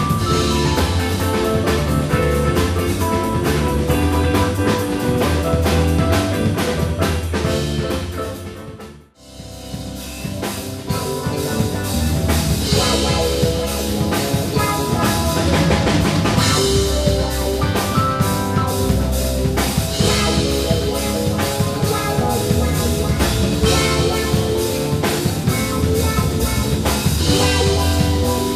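A live band playing, with a drum kit keeping a dense beat under sustained pitched instruments. About nine seconds in the music fades down to almost nothing for a moment, then starts again at full level.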